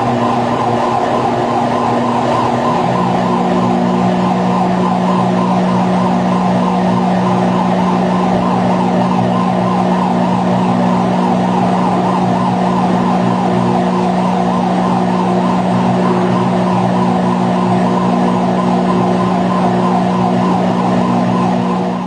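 Steady hum and whine of electric foundry machinery around a furnace charge feeder, several held tones over a dense mechanical drone; a second, lower tone joins about three seconds in.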